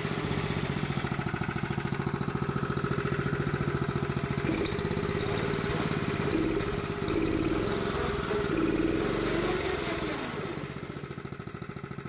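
Go-kart's small engine running steadily at low speed, a little louder in the middle and dropping back quieter near the end.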